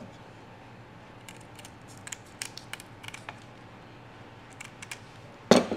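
Scissors snipping through sheet material, a scattering of short sharp snips, then a louder knock near the end.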